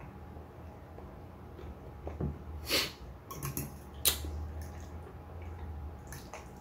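Close-miked eating of instant noodles: soft chewing and mouth sounds with a few brief, sharp sounds, the two loudest near the middle.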